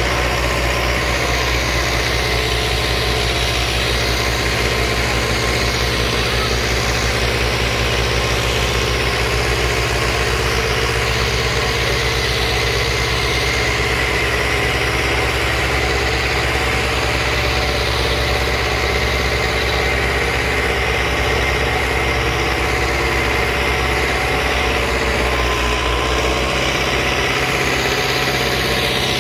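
Farmtrac 6060 tractor's 60 hp diesel engine running steadily under heavy load as it pulls two disc harrows through tilled soil. The engine holds a constant note without labouring, pulling the double harrow easily.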